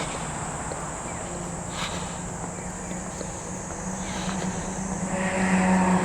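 Outdoor summer ambience: a steady, high-pitched insect drone over a low engine hum that grows louder near the end as a vehicle comes closer.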